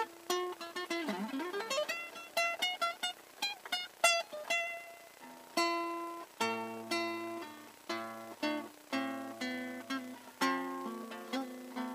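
Solo classical guitar music: quickly plucked single notes, with one note sliding down and back up about a second in, then slower, fuller notes with a bass line from about halfway.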